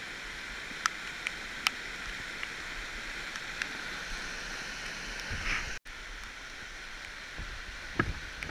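Steady rushing of a mountain stream, with a few light sharp ticks over it and some heavier knocks near the end. The sound drops out suddenly for an instant just before six seconds in.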